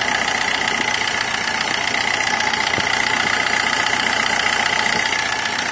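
Suzuki Swift Dzire engine idling steadily, heard close up in the engine bay, with a steady high whine running through it. The AC is switched on but the compressor is not engaging.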